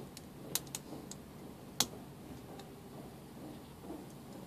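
Sharp plastic clicks from a network keystone jack as its wires are pressed home and its parts snap into place: several clicks in the first two seconds, the loudest just under two seconds in.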